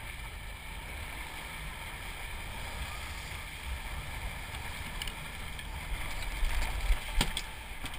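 Water rushing and churning in the wake of a moving boat, with wind on the microphone and a low steady rumble underneath. A couple of sharp knocks sound near the end.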